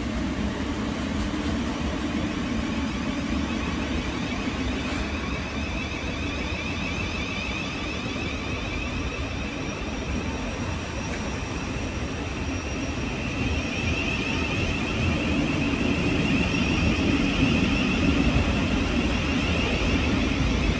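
Siemens Class 700 electric multiple unit pulling away from a station platform, its traction motors' whine rising in pitch as it gathers speed over the wheel and running noise. It grows louder over the last few seconds as the carriages pass close by.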